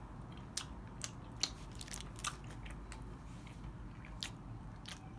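A person chewing candy close to the microphone, with irregular crisp crunches, the loudest about one and a half seconds in.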